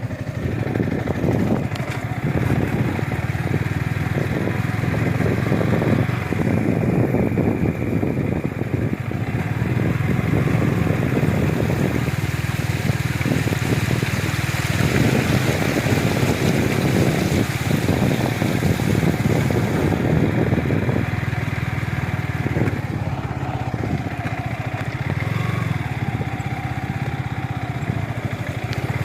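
A motorcycle engine running steadily while water rushes and splashes around it on a flooded road.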